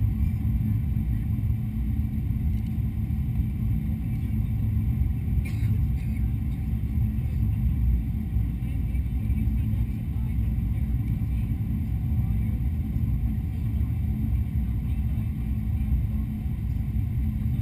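Steady low rumble inside the cabin of a Boeing 777-200 airliner descending on approach: engine and airflow noise heard at a window seat, even in level throughout, with one faint click about five and a half seconds in.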